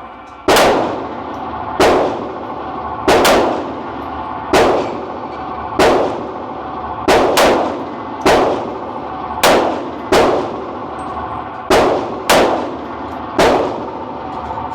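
Handgun shots at an indoor range: about fourteen sharp reports, roughly one a second, some in quick pairs, each followed by a ringing echo in the range.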